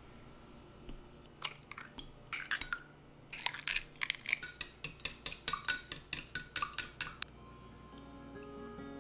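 A metal utensil clinking quickly against a dish, about twenty light strikes with a short ring, as in stirring or whisking in a bowl. It starts about a second and a half in and stops about seven seconds in.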